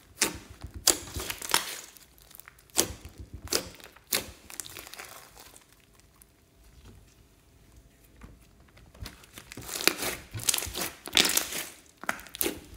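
Hands squeezing and kneading a mass of glossy slime, which gives sharp, sticky crackles and pops as it is pressed and stretched. A few crackles come a second or so apart at first, then a quieter stretch, then a dense run of crackles near the end.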